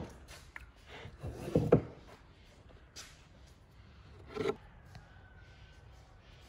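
A pastry brush knocking and scraping in a ceramic bowl and against the rim of a baking pan while a glaze is stirred and brushed on. A sharp click right at the start, a cluster of louder knocks about a second and a half in, and another knock near four and a half seconds.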